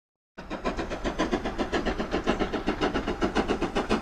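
A train running, with a fast, even beat of about five or six pulses a second that starts abruptly about half a second in.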